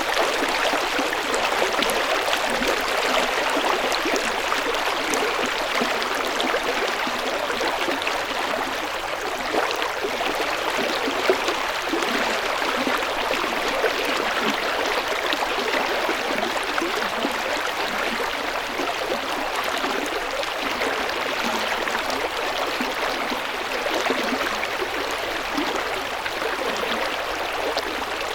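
River water flowing and gurgling in a steady rush, with fine splashing texture throughout.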